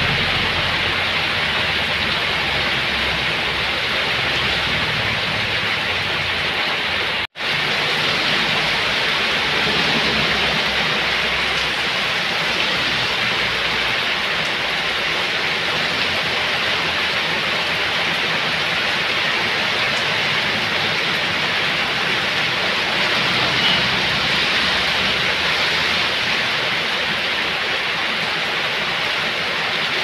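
Heavy rain pouring steadily onto puddled, flooded ground, a dense even hiss of drops splashing. The sound drops out for an instant about seven seconds in.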